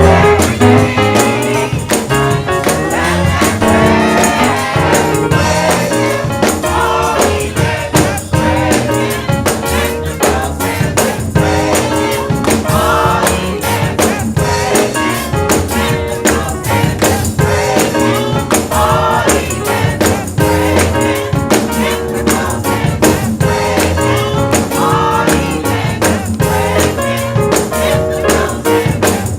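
Live gospel praise-and-worship music: a choir singing over a band, with tambourine and a steady beat.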